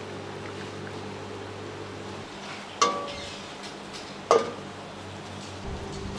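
Two sharp ringing clinks of kitchen cookware or dishes, about a second and a half apart, over a steady low hum.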